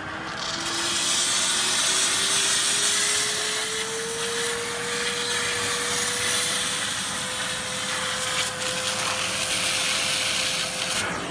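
Blue Evolution S+ steam cleaner with vacuum working on tile grout: a loud, steady hiss of steam and suction at once, over a motor tone that rises in pitch for the first few seconds and then holds steady.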